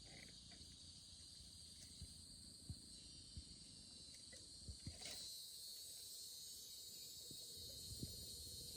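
Faint, steady high-pitched insect chorus in the forest, growing a little louder about five seconds in. A few soft, low thumps are scattered through it.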